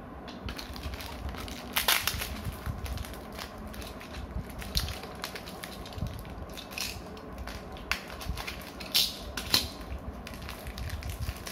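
Plastic packaging and small plastic toy parts being handled while a Beyblade Random Booster is unboxed: irregular crinkling and sharp clicks, the loudest about two seconds in and again around nine seconds in.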